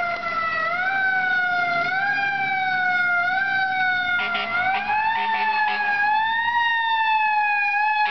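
Fire engine siren wailing: the pitch jumps up quickly and slides slowly back down, again and again, and the cycles grow longer about halfway through. From about four seconds in, short blasts of a low air horn sound over it.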